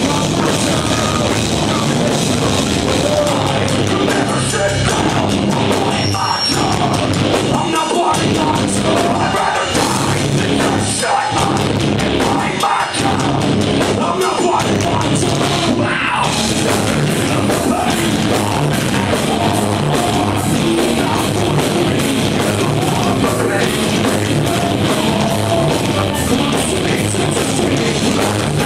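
Live heavy metal band playing loud, with drums and a vocalist singing into a microphone.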